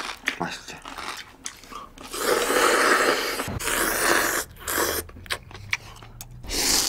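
Ramyeon noodles slurped loudly from a bowl, one long slurp lasting about two seconds from about two seconds in, with small clicks before it and another slurp starting near the end.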